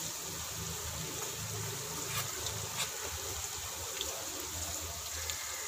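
Onions, green chillies and onion leeks frying in hot oil in a pot: a steady soft sizzle with a few faint crackles.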